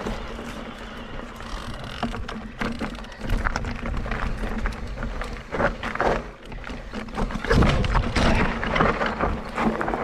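Mondraker Crafty Carbon RR electric enduro mountain bike ridden over rough trail: tyres crunching on dirt and rock, with rapid knocks and rattles from the bike that get loudest a little past halfway. A steady low hum runs beneath.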